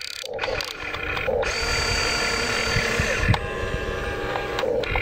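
Huina RC excavator's small electric motors and plastic gearboxes whining as it slews its turret and lifts a bucket of soil, with some low knocks from the machine's moving parts.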